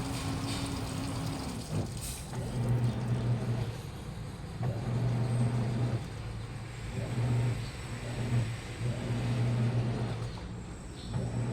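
Washing machine motor turning the drum in short bursts of a second or so with brief pauses between, its low hum switching on and off. A steadier, higher hum stops about two seconds in.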